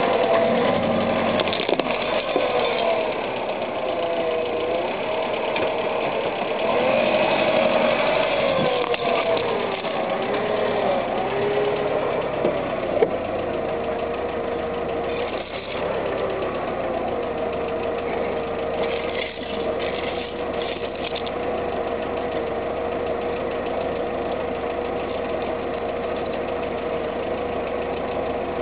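Volkswagen car engine running at low revs, its pitch rising and falling as the car creeps forward and then settling into a steady idle. About thirteen seconds in there is one sharp crack, the tyre crushing a plastic Agfa camera, followed by a few faint crackles.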